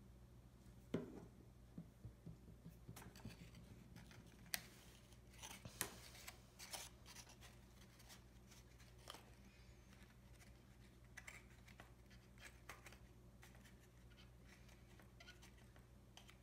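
Near silence: faint, scattered clicks and short rustles of paper cardstock handled and pressed into place by fingers, over a low steady hum.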